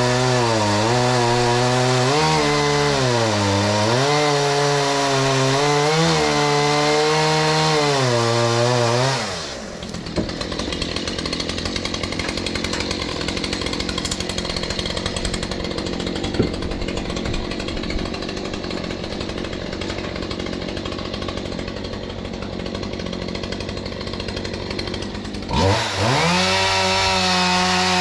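Stihl MS181 two-stroke chainsaw cutting firewood, its engine note dipping and recovering as the chain bites into the log. About nine seconds in it drops back to a rough, pulsing idle. Near the end it revs quickly back up to full throttle.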